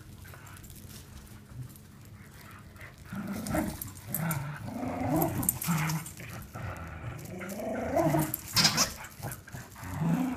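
Two dogs growling in play as they tug a plush toy between them. The growling starts about three seconds in and rises and falls, with a brief sharp sound near the end.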